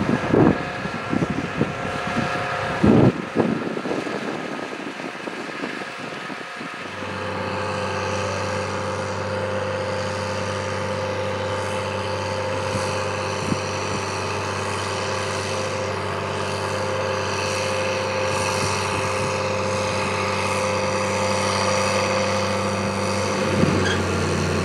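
New Holland T7060 tractor's six-cylinder diesel running steadily under load while pulling a slurry tanker. The first few seconds are broken by gusts of wind on the microphone, and the engine hum settles in evenly after about seven seconds.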